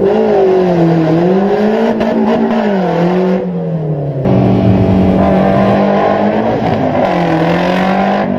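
Off-road race vehicle's engine running loud, its pitch rising and falling over and over as the throttle is opened and eased off.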